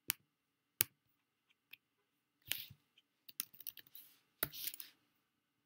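Computer mouse clicks and keyboard keystrokes: two sharp single clicks near the start, then a run of quick taps on the keys over the second half.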